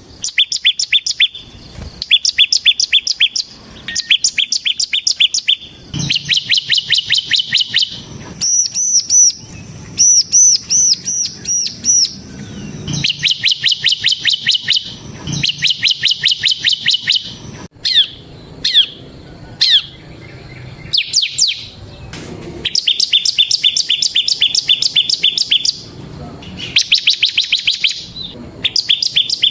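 Bar-winged prinia (ciblek) singing persistently. Its song comes in rapid bursts of sharply down-slurred high notes, each burst one to two seconds long with short pauses between. Around a third of the way through come a few phrases of higher, arched notes.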